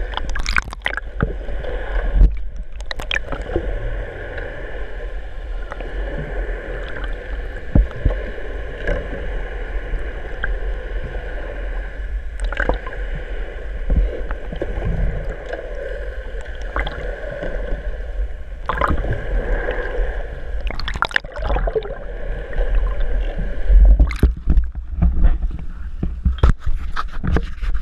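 Underwater sound through a waterproof action-camera housing: muffled water gurgling with a steady hum underneath and scattered sharp splashes and knocks. Near the end the sound gets louder and choppier with splashing as the camera breaks the surface.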